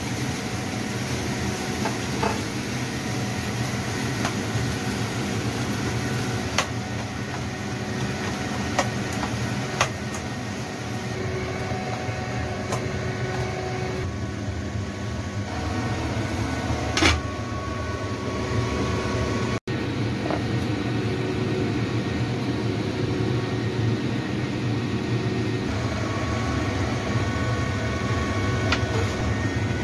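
Steady mechanical hum of kitchen noise, with the occasional clink and scrape of a spatula stirring food in a frying pan and one sharper knock about halfway through.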